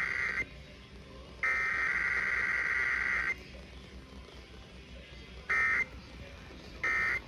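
Emergency Alert System SAME digital data bursts: the raspy two-tone data squawk. A header burst ends just after the start, and a second one of about two seconds begins about 1.5 s in. Two short end-of-message bursts follow, a little over a second apart, near the end.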